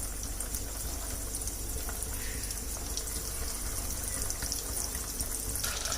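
Breaded potato cheese balls deep-frying in hot oil: a steady sizzle with scattered small crackles.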